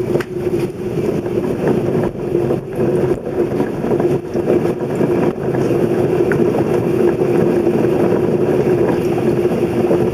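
A steady mechanical hum holding one pitch over a constant rushing noise, with scattered faint clicks.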